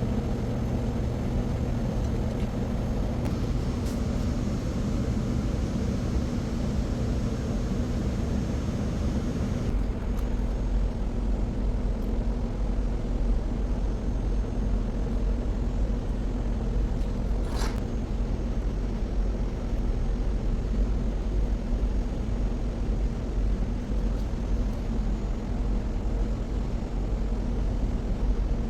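Steady low machinery hum and rumble of an underground hydroelectric plant, with several fixed hum tones, a slight change in the low rumble about ten seconds in, and one sharp click a little past halfway.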